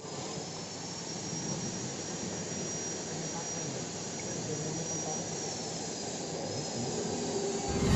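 Machinery running steadily, with a faint thin high-pitched whine over an even mechanical noise.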